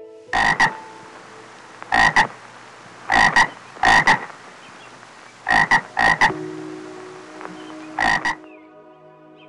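A toad croaking: about seven short, loud calls spread over several seconds, each a quick double note, with faint background music between them.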